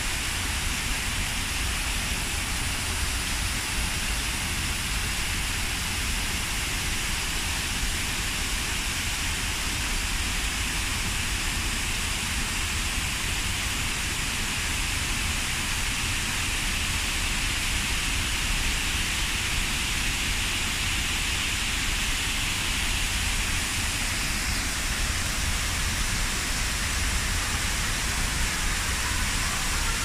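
Artificial waterfall: water pouring off a rockwork ledge in many thin streams and splashing down, a steady, even rush of falling water.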